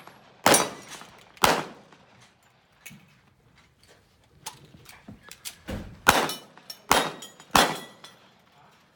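Pistol shots: two about a second apart, then after a pause three more in quick succession, each under a second apart. Fainter sharp clicks fall in the pause between them.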